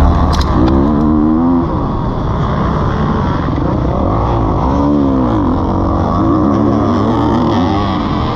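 Kawasaki KX450F motocross bike's four-stroke single-cylinder engine being ridden hard, its revs rising and falling in pitch again and again as the throttle is opened and shut.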